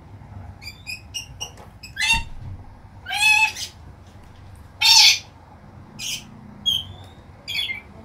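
Parrot calls: a few short high chirps in the first second and a half, then harsh squawks, the loudest about three and five seconds in, and several shorter calls near the end.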